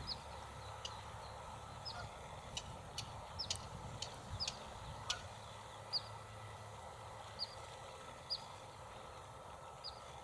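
Mallard ducklings peeping: short, high, downward-falling peeps about once a second, with a few sharp clicks in between near the middle.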